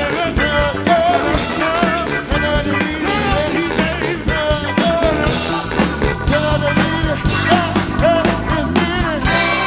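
Live band playing an upbeat song with a steady drum beat under a melodic lead line.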